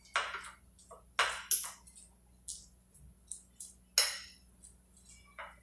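A metal fork clinking and scraping against a plate while mixing a sticky mashed-banana and oat batter: a string of sharp, irregular clinks, the loudest about four seconds in.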